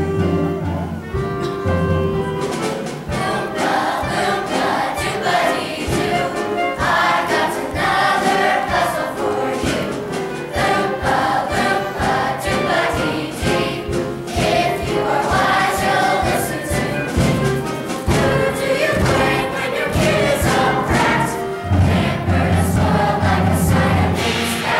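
A large chorus of children's voices singing together, with instrumental accompaniment underneath that includes held bass notes.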